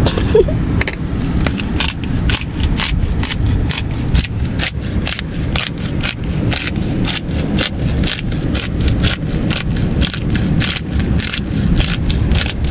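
Hand-twisted pepper grinder cracking peppercorns in a quick, even run of crisp grinding strokes, about four a second, over a steady low rumble.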